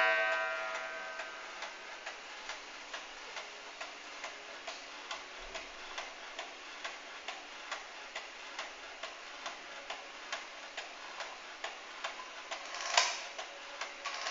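An 1881 New Haven walnut kitchen clock ticking about twice a second, while the ring of its last strike fades out at the start. Near the end the striking train gives a single strike on its coiled wire gong, which rings briefly.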